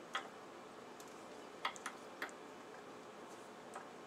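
A few light, sharp clicks and taps as multimeter test probes are handled and touched to the leads of a small capacitor being measured, over a faint hiss.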